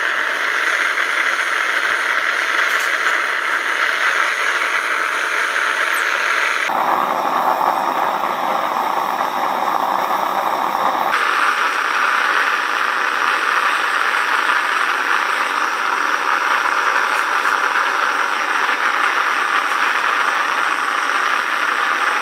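Loud, steady mechanical rushing noise with no pitched note, its tone changing abruptly twice, about seven and eleven seconds in.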